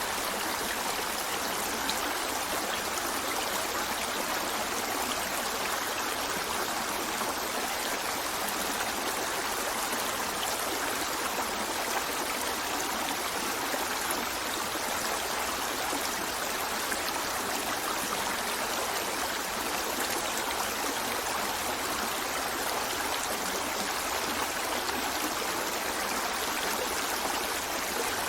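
River water flowing over rocks, a steady, even rush and babble that does not change.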